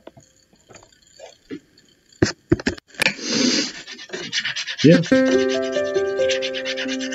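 Background music: after a near-quiet stretch with a few sharp clicks and a brief swell, a new piece begins about five seconds in with held chords.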